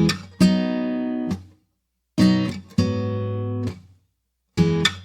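Background music: acoustic guitar strumming chords in pairs. A short strum is followed by a longer ringing one, with brief pauses between the pairs.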